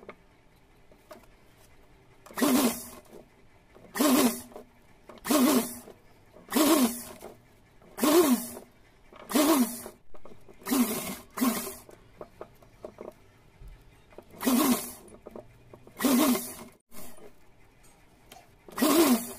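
Electric sewing machine run in short bursts, about a dozen stitching runs each lasting under a second, the motor pitch rising and falling with every run, with short quiet gaps between.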